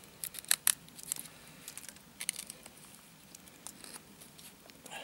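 Real Steel Bushcraft knife blade carving fine shavings from a stick of fairly dry wood: a string of short, sharp cutting scrapes. The loudest come about half a second in, then sparser strokes follow.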